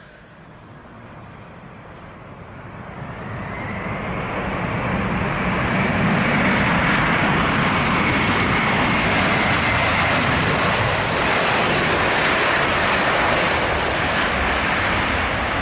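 Boeing 747-400's four jet engines spooling up at high thrust: the jet noise grows from a low rumble over about six seconds, with a rising whine joining about three seconds in, then holds loud and steady, as on a takeoff roll.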